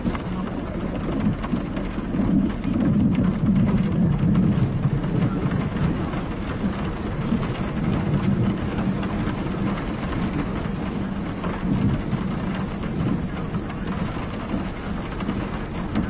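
Storm noise: a steady low rumble of wind with rain, mixed with a vehicle's running noise, swelling a couple of seconds in and then easing.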